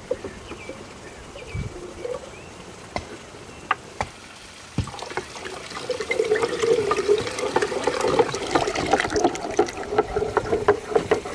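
Water poured from a clay jug into a clay pot while a wooden spoon stirs the white mixture inside, the spoon clicking against the pot. The pouring and stirring start about five seconds in; before that only a few light knocks.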